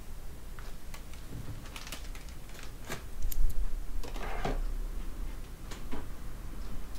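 Light clicks and taps of kitchen handling at a table: metal tongs and a plastic seaweed bag being set down and moved, with a short rustle a little after four seconds.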